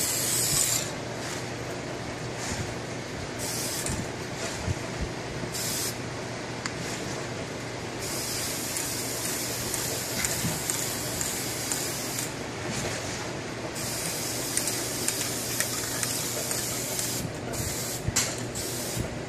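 Aerosol spray-paint can hissing in bursts: several spurts of a second or less, two longer sprays of about four seconds in the middle, and quick short spurts near the end, over a steady low hum.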